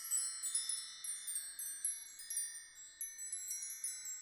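Tinkling chimes: many high tones struck one after another, overlapping as each rings on, with no low notes.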